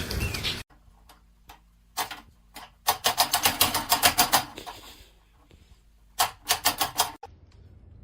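Rapid tapping or clattering, several sharp taps a second in two runs: one from about three seconds in, lasting a second and a half, and a shorter run near the end.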